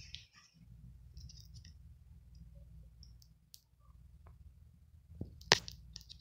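A low steady hum with scattered faint clicks, and one sharper click about five and a half seconds in.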